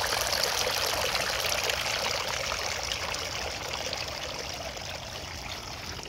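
Outdoor garden water fountain running: a steady splash and trickle of water falling into its basin, fading slightly toward the end.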